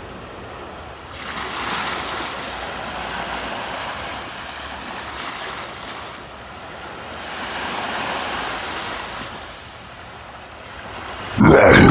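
Sea waves washing onto a sandy beach, the surf swelling twice. Loud music comes in near the end.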